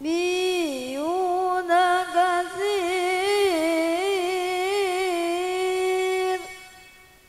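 Quran recitation (tilawah) in a melodic style: one voice holds a single long phrase with wavering, ornamented turns of pitch, then stops about six seconds in and dies away.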